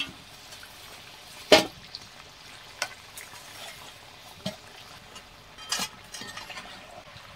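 Chicken pieces sizzling steadily in hot mustard oil in a metal kadai while a steel ladle scoops them out, knocking and scraping against the pan about five times, loudest about a second and a half in.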